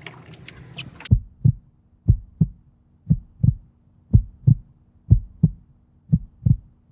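Heartbeat sound effect: paired low thumps, lub-dub, about once a second, six beats in all, over a faint steady hum, starting about a second in as the outdoor background cuts off.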